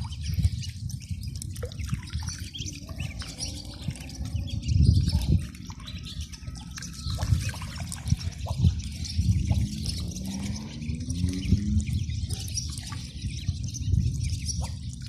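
Water splashing and dripping in short irregular spatters, with a few faint bird calls.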